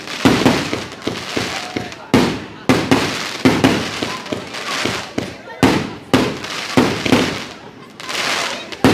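Fireworks going off: a string of loud, sharp bangs, roughly one to two a second, with crackling between them.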